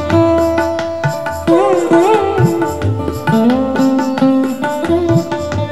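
Indian instrumental background music: tabla strokes, with the bass drum's notes swooping up in pitch every couple of seconds, under a sustained melodic line that glides between notes.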